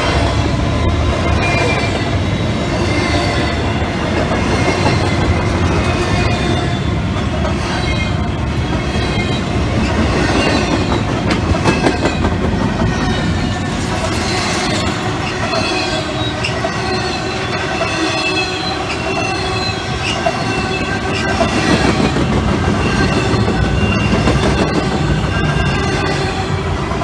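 Double-stack intermodal freight train's well cars rolling past: a steady rumble of steel wheels on rail, clickety-clack over the joints, and high-pitched wheel squeal coming and going.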